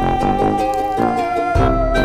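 Background music: a long held melody note with a slight waver that sinks a little in pitch, over chords and a bass beat.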